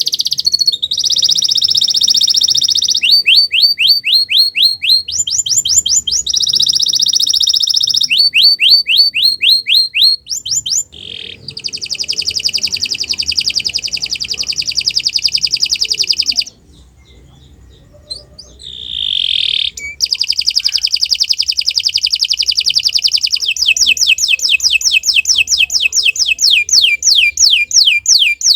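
Domestic canary singing a long, loud song of rapid trills and fast runs of repeated rising notes. It breaks off for about a second and a half just past halfway, then resumes.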